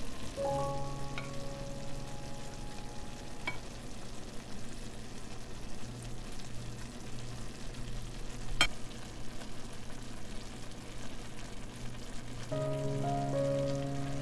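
Pan of potatoes, green beans, peppers and onion frying with a steady sizzle, and a single sharp tap about halfway through. Soft background music plays at the start and near the end.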